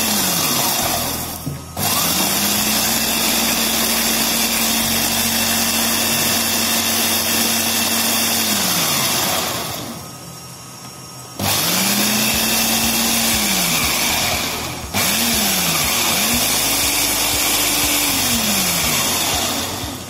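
Electric food processor chopping red chillies, garlic and salt, run in several pulses: each time the motor spins up, runs steadily, then winds down. The longest run lasts about seven seconds, and a brief burst comes near the middle.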